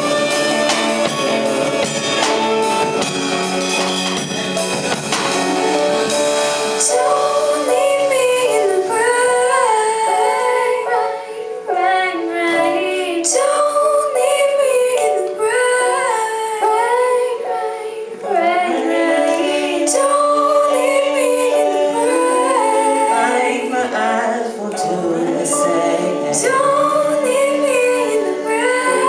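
Live band playing a pop ballad: drums, bass, guitar, piano and saxophone together for the first few seconds, then from about seven seconds a woman's lead voice sings a wavering melody over sustained harmony, with the drums mostly dropping out.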